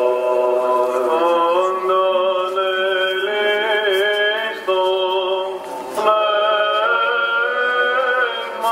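Greek Orthodox vespers chant: voices chanting long, drawn-out melodic lines over a steady held note, the melody moving slowly from note to note.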